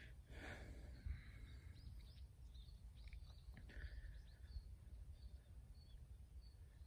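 Faint birds chirping and twittering in short calls over a low, steady rumble.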